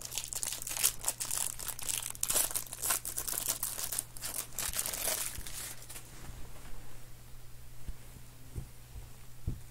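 Foil trading-card pack wrapper crinkling and tearing as it is pulled open, a dense crackle that stops about six seconds in.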